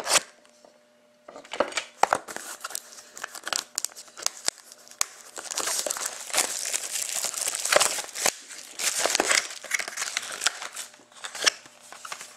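Plastic wrap on a sealed hockey card box being torn open and crumpled: dense crinkling and ripping with many sharp crackles. It starts about a second in and keeps up with little pause.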